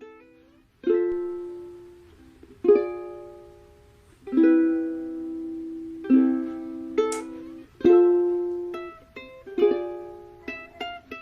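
Background music: plucked-string chords struck about every second and a half, each ringing out and fading, with quicker notes near the end.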